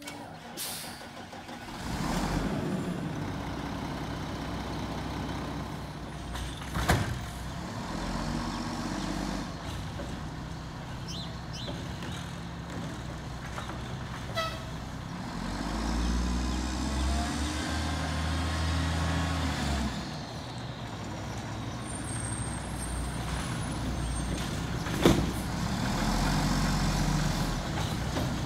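Mack MR garbage truck's diesel engine running as the truck drives along, surging louder for a few seconds past the middle. Two sharp air-brake bursts stand out, about a quarter of the way in and near the end.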